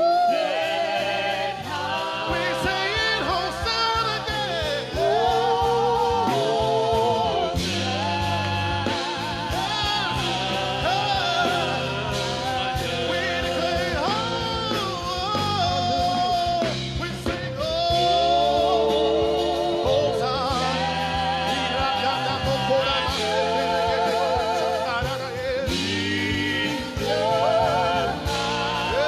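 Live gospel worship music: long sung lines with heavy vibrato over a steady instrumental accompaniment.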